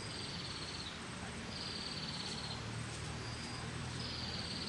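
High-pitched animal calls: a thin, slightly falling note about a second long, coming back about every two seconds, with a faint rapid pulsing higher up. A low steady hum runs underneath.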